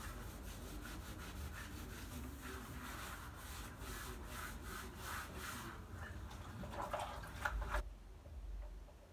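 Grout being rubbed into a tile mosaic by a gloved hand: short scraping strokes at about three a second, louder for a moment near the end.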